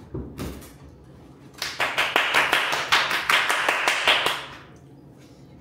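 Rapid hand clapping, about six claps a second, starting about a second and a half in and lasting close to three seconds, with a couple of softer knocks just before it.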